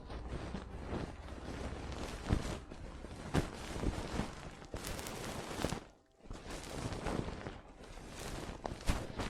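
Close-miked ASMR crackling and scratching with frequent sharp clicks, stopping briefly about six seconds in.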